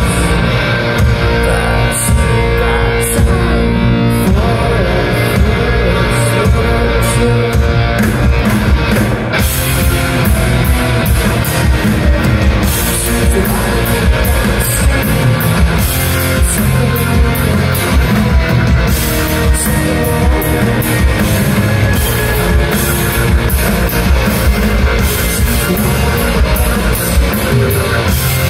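Rock band playing live: distorted electric guitar, bass guitar and drum kit, with the cymbals getting busier about nine seconds in.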